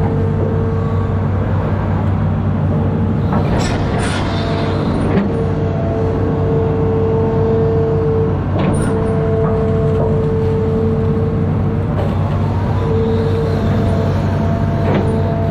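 Amphibious excavator's diesel engine running steadily under load, with a high hydraulic whine that stops and starts several times as the machine works, and a few sharp metallic knocks.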